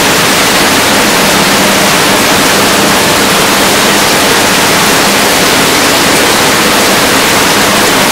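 Steady, loud rushing of water running through the hatchery's rearing troughs, with a low steady hum underneath.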